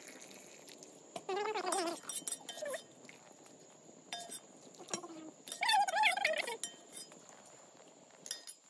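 A metal slotted spoon clinks against steel pots as boiled noodles are lifted out of their cooking water. Two wavering, bleat-like animal calls, louder than the clinks, come about a second in and again about halfway through.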